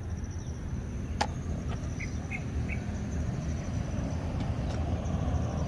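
Outdoor ambience: a faint, steady high insect trill over a louder low rumbling background noise, with one sharp click about a second in and three short high chirps around two seconds in.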